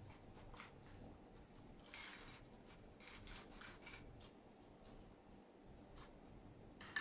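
Faint clicks and crackles of people eating and handling lettuce wraps at a table, with a sharper click about two seconds in and a cluster of crackles around three to four seconds.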